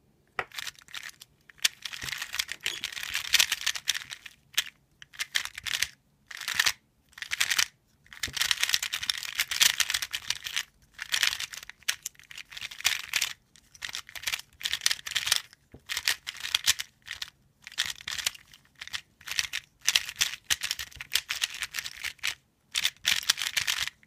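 Dayan 2x2 puzzle cube in new plastic, fitted with Aolong springs, being turned fast by hand: runs of crisp plastic clicking and scraping turns, a second or two at a time, with short pauses between.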